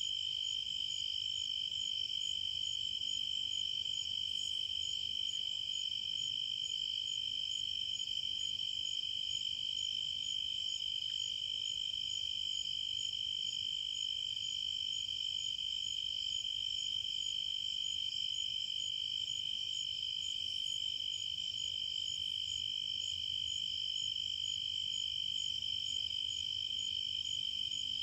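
A steady chorus of crickets: one continuous high trill, with a fainter chirp above it pulsing a few times a second.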